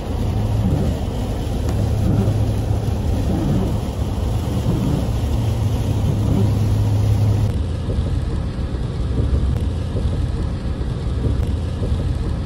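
Steady low rumble of a moving truck heard from inside the cabin: engine drone and road noise.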